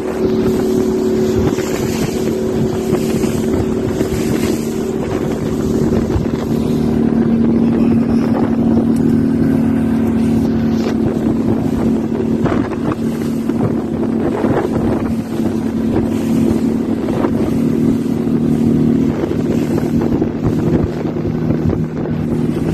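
Motorboat engine running steadily at speed while towing a parasail, with wind buffeting the microphone and water rushing past the hull.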